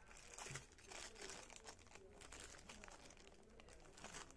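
Thin clear plastic packaging bags crinkling faintly as they are handled, in a run of quick, irregular rustles.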